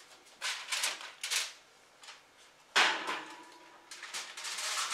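Handling noises as a foil-covered glass baking dish is lifted off the stovetop and put into the oven: short rustling and scraping, then a sharp metallic clank about three seconds in that rings briefly, from the oven door and rack.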